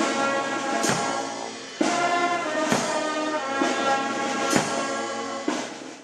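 Military brass band playing a slow march: sustained brass chords over a drum beat about once a second.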